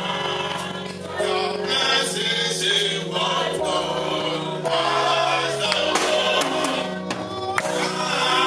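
A choir sings a gospel song over sustained instrumental chords, with sharp percussive hits every second or so.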